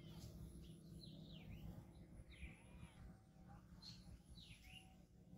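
Faint bird calls: about half a dozen short chirps that sweep down and up in pitch, over a low background rumble.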